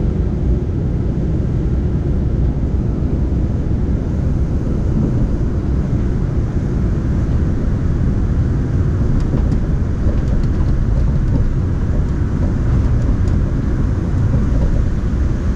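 Cabin noise of a Daegu Metro Line 3 driverless rubber-tyred monorail train running along its elevated guideway: a steady low rumble.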